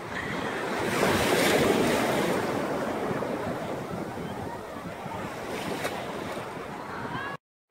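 Ocean surf washing in the shallows, with wind on the microphone; a wave swells up about a second in. The sound cuts off suddenly just before the end.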